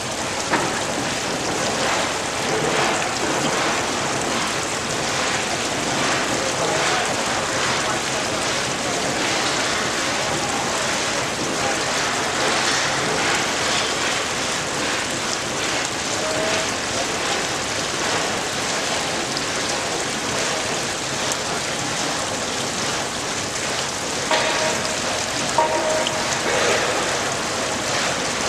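Steady rush of splashing water, an even noise without pauses, with a couple of faint short knocks and tones near the end.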